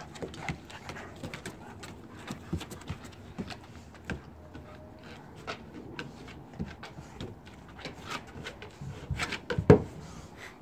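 A Saint Bernard and a black Labrador playing tug-of-war with a rope toy on a wooden deck: paws and claws clicking and scuffling on the boards, with a louder thump near the end.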